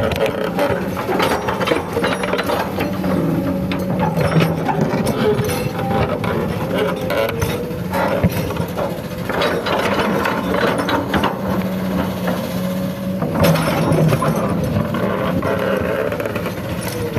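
Hydraulic excavator's diesel engine running steadily under load, its pitch dipping briefly a few times, while the steel bucket digs and scrapes through rocky soil with repeated clatters and grinding of stones.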